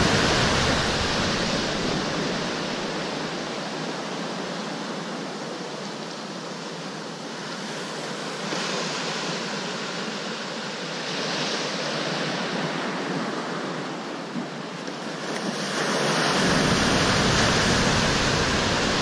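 Ocean surf, a steady rush of breaking waves that swells and eases. Wind rumbles on the microphone at the start and again near the end.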